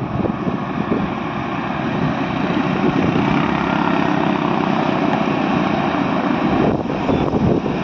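Diesel engine of a heavily loaded multi-axle goods truck pulling through a bend, growing gradually louder as it approaches. Its steady note changes a little before the end.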